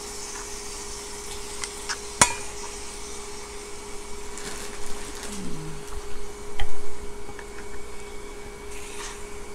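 Chopsticks clinking and scraping against a stainless steel pot and a kimchi jar as kimchi and pork are stirred, with one sharp clink about two seconds in and louder rattling about two-thirds of the way through, over a steady hum.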